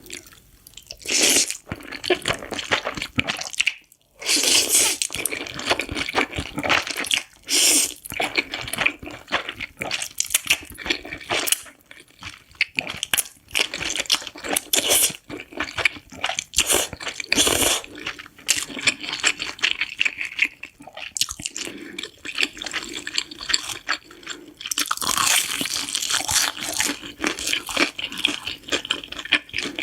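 A person eating spicy noodles: repeated wet slurps and chewing, in irregular bursts.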